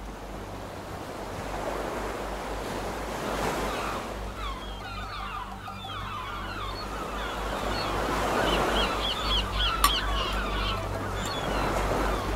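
Surf washing on a shore, growing steadily louder, with birds calling in many short repeated chirps from about four seconds in. A single sharp click about ten seconds in.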